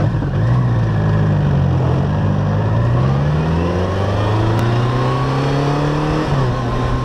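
A vehicle engine accelerating, its pitch rising slowly and steadily, then dropping briefly about six seconds in at a gear change before climbing again.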